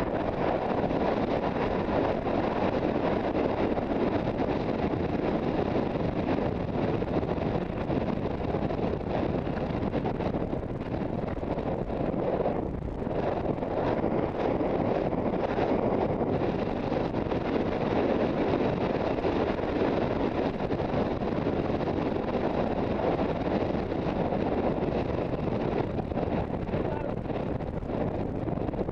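Wind rushing over the microphone of a camera worn by a galloping rider, a steady rush that eases briefly about halfway through.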